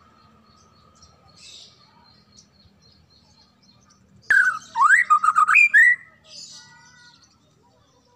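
White-rumped shama (murai batu) singing: about four seconds in, a loud burst of clear whistled phrases that sweep up and down and break into quick notes, lasting under two seconds, with faint chirps before and after.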